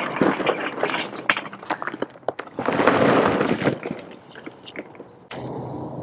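Charcoal briquettes tumbling out of a paper bag onto the grate of a 22-inch Weber kettle grill: a run of clattering knocks with the bag rustling, and a bigger pour about three seconds in. Near the end the sound gives way to a steady low hum.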